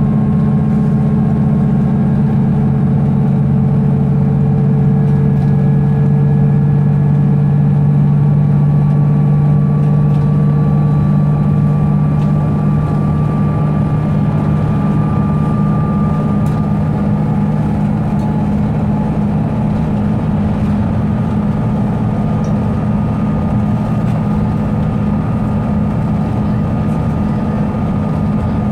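Mercedes-Benz Citaro G (O 530 G) articulated bus under way, its engine giving a steady low drone. Its ZF Ecomat automatic gearbox whines loudly over it, the whine climbing slightly in pitch over the first half and then holding steady.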